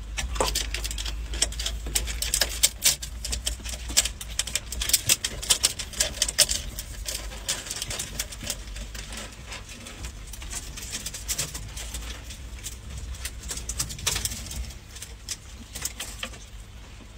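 Rapid, irregular small clicks and snips as a ferret's claws are trimmed with nail clippers, thinning out near the end, over a steady low hum.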